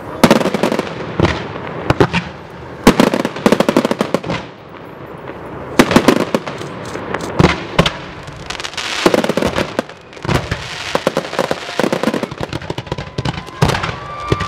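Fireworks display: loud bangs of bursting shells in clusters, with long runs of rapid crackling in the second half.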